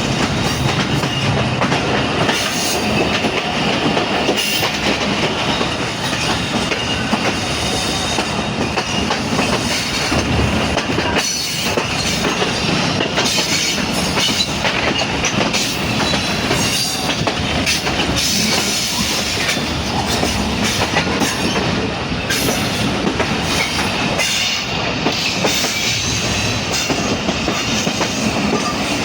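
Pakistan Railways passenger train running at speed: the wheels clatter continuously over the rail joints, under a steady high-pitched wheel squeal.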